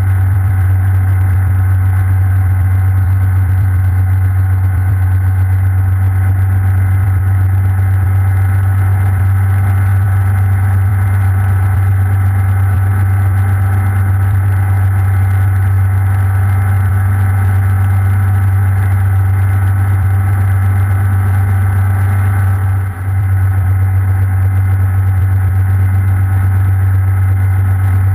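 Hughes 269B light helicopter heard from inside its cockpit: the steady drone of its Lycoming piston engine and rotor at low hover, with one brief dip in level about four-fifths of the way through.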